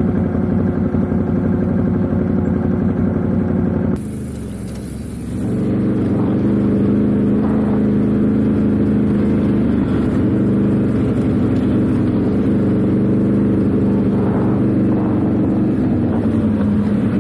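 Motorcycle engine running under way at a steady note; about four seconds in it drops off suddenly and picks back up over the next second and a half, then runs steadily again.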